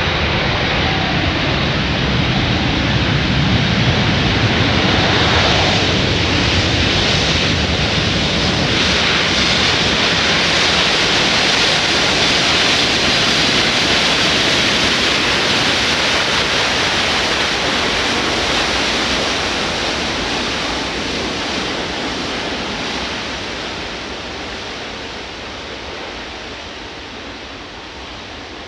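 Airbus A350's Rolls-Royce Trent XWB engines in reverse thrust during the landing rollout: a loud, steady rush of jet noise with a low rumble at first. It fades over the last third as the engines spool down and the airliner slows.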